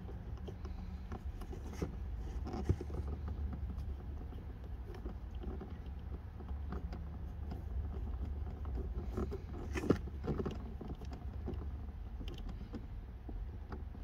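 Hands screwing a plastic Posi Tap wire connector onto turn-signal wiring: scattered small plastic clicks and rattles, two sharper ones about three and ten seconds in, over a steady low hum.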